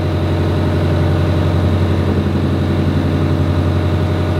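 A sailing yacht's engine running steadily, heard from inside the cabin as an even low drone.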